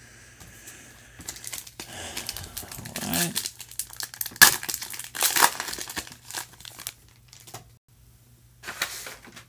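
Foil wrapper of a football trading-card pack being torn open and crinkled in the hands: a few seconds of irregular crackling, then a brief rustle near the end.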